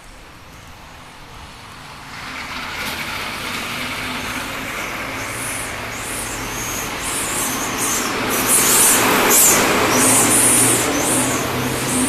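City bus passing along the street, its engine growing louder from about two seconds in and loudest near the end, with repeated short bursts of high hiss.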